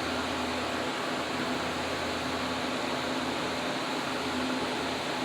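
Steady background noise with a faint low hum, like a fan or air conditioner running; no distinct handling sounds stand out.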